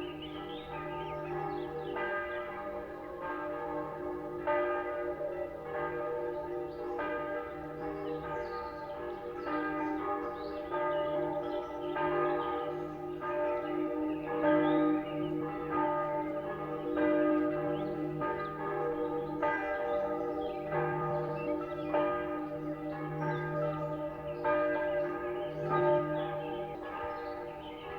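Church bells ringing in a continuous peal, repeated strikes overlapping so that each bell's ringing tone hangs on under the next.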